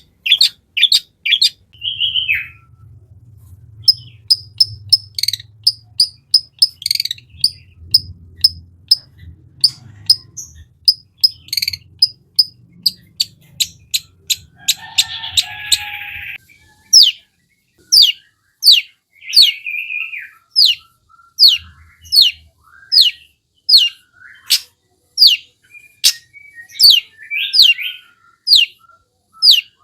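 Long-tailed shrike (cendet) singing a varied song: quick strings of sharp downward-slurred notes, a run of short clipped high notes, and a harsh rasping call about halfway through. In the second half, loud downslurred notes come about once a second.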